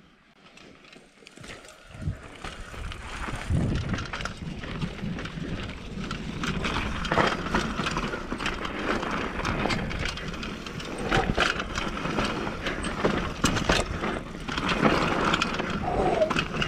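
Mountain bike rolling down a dry dirt trail: a steady crunch of tyres on dirt with frequent clattering knocks from the bike. It builds up over the first few seconds as the bike gathers speed.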